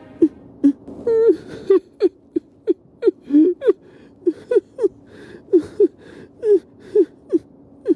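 A person crying in short, high whimpering sobs, about two a second, each with a wavering or falling pitch.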